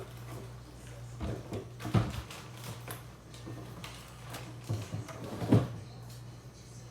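Kitchen clatter: a few separate knocks and thuds of things being handled, the loudest about two seconds and five and a half seconds in, over a steady low hum.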